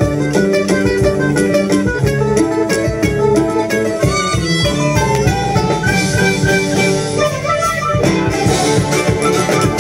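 Community orchestra of violins and acoustic guitars playing a gato riojano, an Argentine folk dance tune, live through a stage PA.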